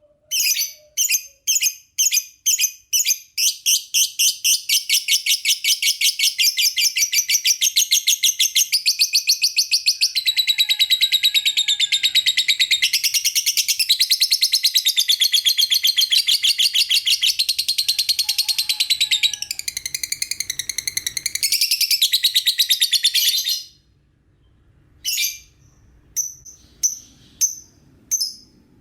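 Lovebird chirping: high, sharp chirps, spaced at first, quicken into a long, fast, unbroken chattering trill of about twenty seconds that stops suddenly. A few scattered chirps follow near the end.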